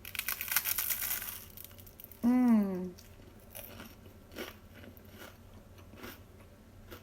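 A person bites into something crisp spread with jam, about a second and a half of crunching. Then comes a short falling "mmm" of enjoyment a little after two seconds in, and faint chewing.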